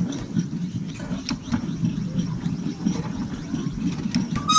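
A 7¼-inch gauge miniature steam train, hauled by the Tinkerbell-type locomotive, running steadily along the track with a low rumble and irregular clicks of the wheels over the rails. A short high tone sounds just before the end.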